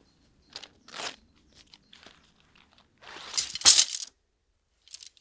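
Crunching and rustling of dry leaf litter as tent poles and their plastic bag are handled, with scattered light clicks. The loudest crunch comes about three and a half seconds in.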